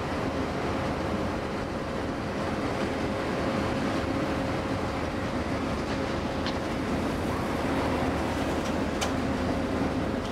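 Taiwan Railway R122 diesel locomotive's engine running steadily with an even low hum. A few short metallic clicks come in the second half.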